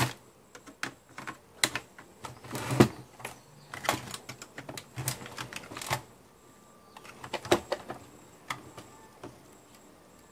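Irregular clicks and taps of hard plastic as a screwdriver and hands work on an opened robot vacuum chassis. The clicks come thick for the first few seconds, pause, then come more sparsely.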